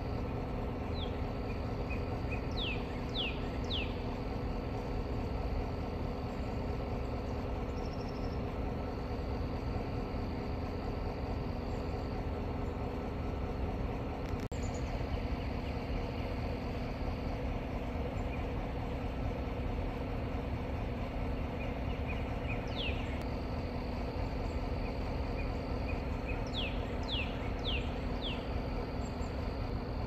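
Outdoor ambience: a steady low rumble under a faint high, even hiss. A songbird gives short downslurred whistled notes in quick runs of three or four, near the start, about two-thirds through and again near the end.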